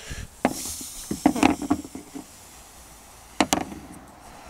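Hard parts knocking and clattering as they are handled and test-fitted: a single knock about half a second in, a quick cluster of knocks a second later, and a sharp double knock past the three-second mark.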